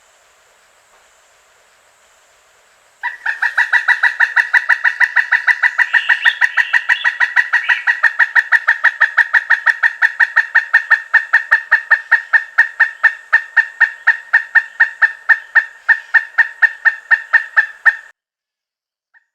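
Pileated woodpecker calling: a long, even series of sharp, high 'kuk-kuk-kuk' notes, about four a second, starting about three seconds in and stopping abruptly near the end.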